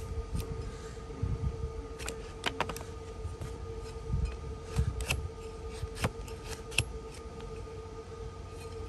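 A long-handled hoof-trimming shovel pares horn from the sole of a donkey's hoof, giving irregular sharp cutting and scraping strokes. A faint steady hum runs underneath.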